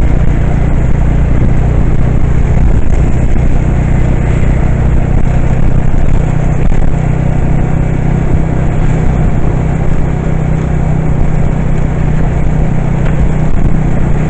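Loud, steady engine hum and road noise, heard from on board a moving motor vehicle.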